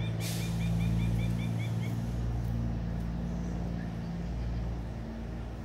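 A motor or engine running steadily, heard as a low hum. In the first two seconds a bird calls a quick run of about ten short chirps, and a brief rustle comes right at the start.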